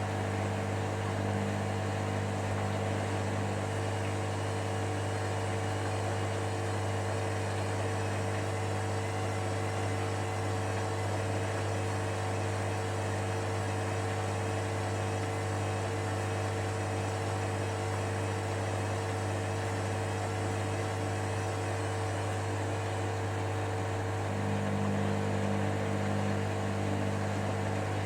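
Hoover Dynamicnext washer-dryer running a steady, unchanging hum as it makes repeated attempts to balance a single heavy bathmat load before spinning. About 24 seconds in, the low part of the hum shifts.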